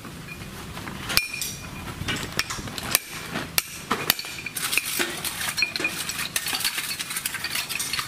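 Steel hammer tapping a punch against a gear and bearing removed from a Kubota DC105X combine harvester, giving irregular, ringing metal-on-metal clinks that start about a second in.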